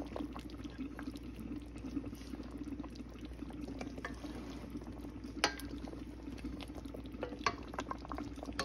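Tomato-sauce stew bubbling at a simmer in a stainless steel pot, with a few sharp clicks of a wooden spoon against the pot, the clearest about five and a half seconds in.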